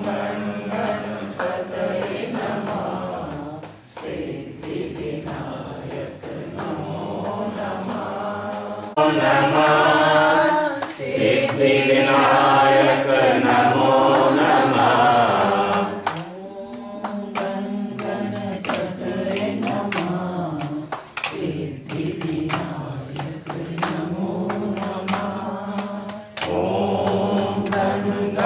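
Voices singing a Hindu devotional bhajan together in long, held chanted notes, louder for several seconds from about a third of the way in.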